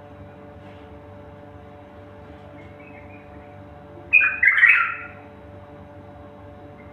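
A bird gives one loud, harsh squawk lasting about a second, about four seconds in, after a few faint chirps. A steady low hum runs underneath.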